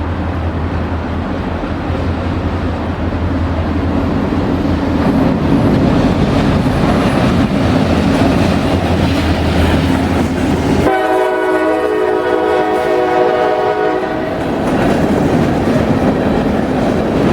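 CSX diesel freight train, hauling empty cars, crossing a railroad drawbridge: a steady locomotive engine rumble and wheels clattering on the rails. About eleven seconds in, the locomotive's air horn sounds one long blast of about three seconds, then the rumble and clatter carry on.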